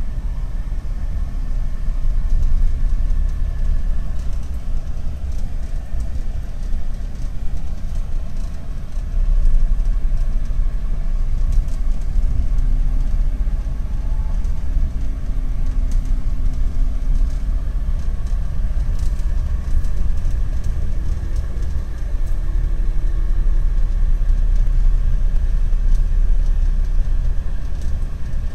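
Car moving slowly, heard from inside the cabin: a steady low rumble of engine and tyres, with a faint engine hum that shifts slightly in pitch.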